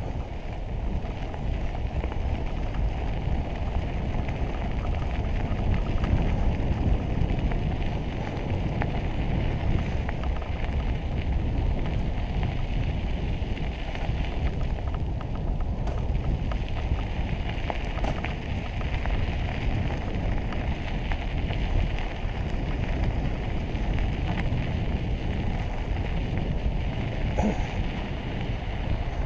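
Mountain bike riding along a dirt and gravel trail: steady rush of wind on the microphone over the rolling crunch of the tyres, with scattered small clicks.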